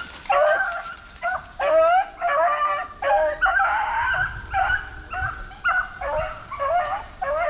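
Rabbit-hunting dogs giving voice on a rabbit's trail: a run of short, high yipping bays, about two a second, some overlapping.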